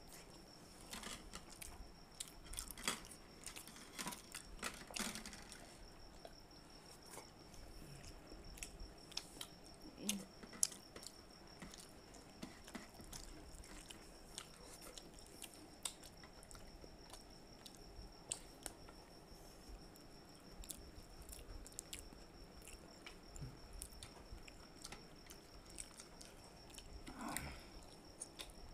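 Close-miked eating sounds of people chewing and biting into ripe mango, made up of many small irregular mouth clicks. A faint steady high whine runs underneath.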